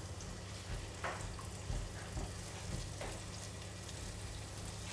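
Minced garlic sizzling quietly in hot garlic oil in a nonstick wok, stirred with a silicone spatula, as it fries until fragrant and lightly browned.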